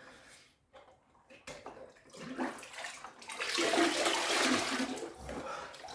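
Ice water poured from a jug over the shoulders, splashing back into the water of a chest-freezer cold plunge; it starts about two seconds in, is heaviest in the middle and trails off near the end.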